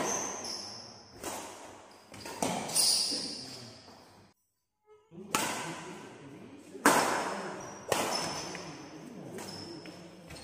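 Badminton rally in a large hall: sharp racket strikes on the shuttlecock every second or so, each ringing in the room, with shoes squeaking on the court floor. The loudest strike comes about seven seconds in. The sound drops out for under a second about halfway.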